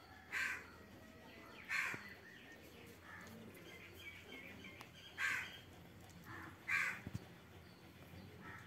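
A crow cawing: four short caws, two near the start and two more just past the middle, over a faint background with a few soft chirps.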